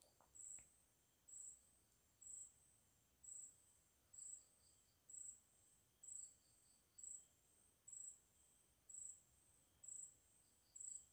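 Faint, steady chirping like an insect: a short high chirp about once a second, with softer clusters of quick pulses now and then, over near silence.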